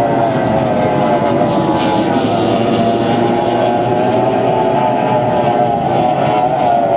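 Formula 1 tunnel-hull race boats' outboard engines running flat out at high revs, their pitch wavering and dipping slightly near the end.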